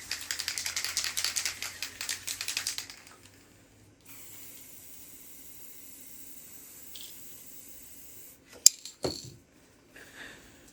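Rapid rattling, many small clicks a second, for about three seconds, then a faint steady hiss, a sharp click followed by a duller knock, and a last small scrape near the end.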